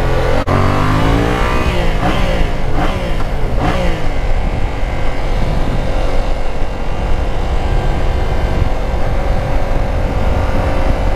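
2019 Yamaha MT-07's parallel-twin engine accelerating, rising in pitch in a few steps over the first four seconds, then running steadily at cruise. A sharp click about half a second in.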